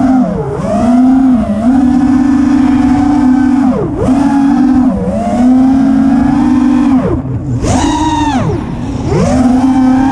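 Brushless motors and propellers of a 6S FPV freestyle quadcopter whining as the throttle changes, the pitch dropping sharply and climbing back about half a second in, near four seconds and deepest around seven to eight seconds.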